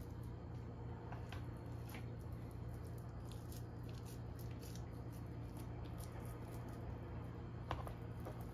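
Faint wet squishing and soft clicks of raw ground meat being pressed and shaped by hand around a boiled egg, over a steady low hum.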